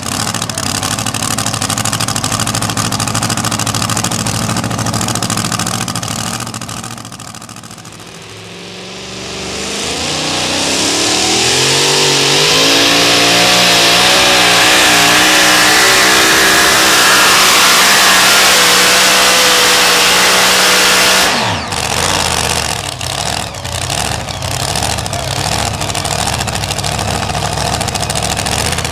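Supercharged engines of super modified two-wheel-drive pulling trucks running hard. About a third of the way in, a truck's engine climbs in pitch and runs flat out for about twelve seconds while pulling the sled, then cuts off suddenly. After that an engine idles unevenly.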